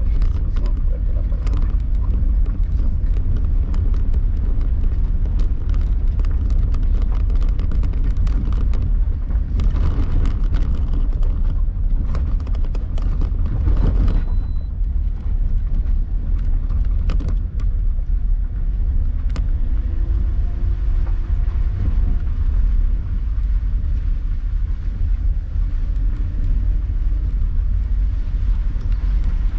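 Inside a car climbing a steep, narrow track of loose stones: a steady low rumble of engine and tyres, with frequent clicks and knocks from stones under the wheels and the body jolting.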